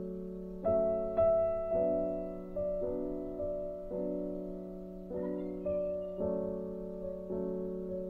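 Slow, gentle background music on keyboard: single notes and chords struck about once every half second to a second, each left to ring and fade.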